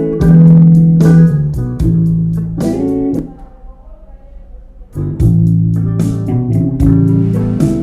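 Rock song played back through a Bluetooth speaker for a sound test: guitar and bass guitar with a strong bass line. The music drops out to a near-quiet break for about a second and a half in the middle before the full band comes back in.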